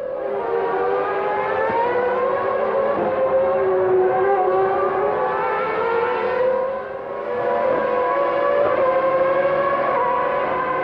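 Engines of 1996 Formula One cars at high revs, several engine notes overlapping, their pitch sliding up and down as the cars pass and shift gear. The sound eases briefly about seven seconds in, then another car's engine comes in.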